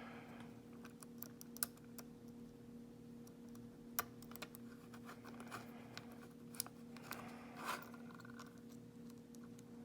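Faint scattered clicks and scratches of a lock pick and tension wrench working the pins of a pin-tumbler lock, with a few sharper ticks, over a steady low hum.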